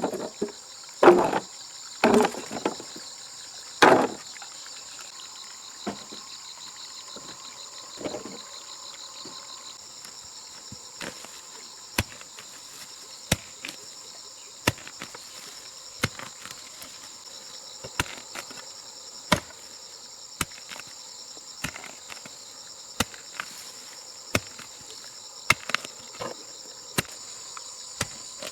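Steady high chirring of insects. Over it come a few heavy knocks in the first four seconds and another near eight seconds, then sharp single clicks roughly once a second.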